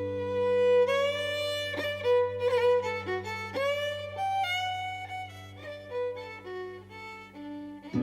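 Irish traditional instrumental music: a fiddle plays an ornamented melody with slides over a steady low drone. A new held chord comes in right at the end.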